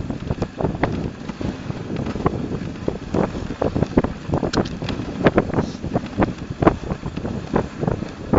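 Dog sled running over a packed snow trail, heard from inside the sled basket: a steady rush of runners on snow and wind on the microphone, broken by irregular knocks and crunches a few times a second.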